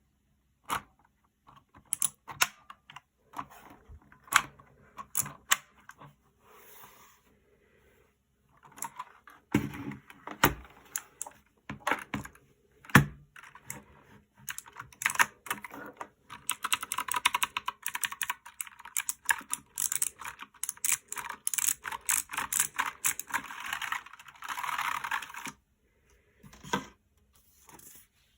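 Typing on a One Up G300 mechanical keyboard with clicky Outemu Blue switches: scattered single key presses at first, then a fast, continuous run of typing in the second half that stops a few seconds before the end.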